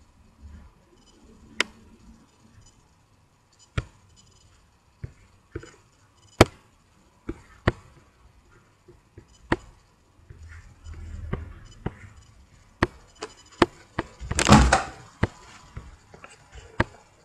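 Computer mouse clicking, single sharp clicks at irregular intervals, with a louder scuffing bump about fourteen and a half seconds in.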